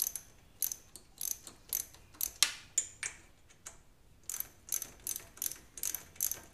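Small hand ratchet with a 14 mm socket clicking on its return strokes as it loosens the front brake caliper mounting bolts of a Honda CBR1000RR by hand. The clicks come in a steady run, a few a second, with a brief pause about halfway.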